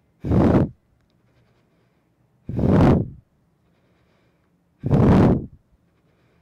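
A woman's forceful exhales during crunches, three of them, one about every two seconds, each a short breathy blast.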